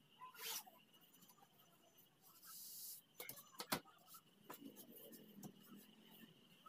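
Faint handling sounds while drafting a pattern on cloth: a scratchy stroke of tailor's chalk drawn along a wooden scale, then a few sharp taps, the loudest about halfway through, from the wooden scale being handled on the table.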